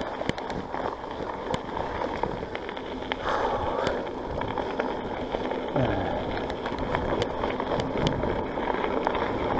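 On One Parkwood mountain bike being ridden along a wet trail: steady tyre and riding noise with the drivetrain and frame rattling, broken by many sharp clicks.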